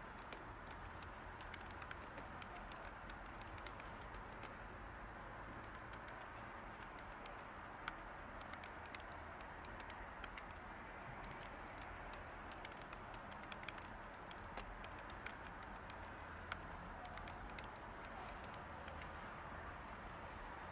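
Light typing on a computer keyboard: soft key clicks at an irregular pace, over a steady, faint white-noise hiss.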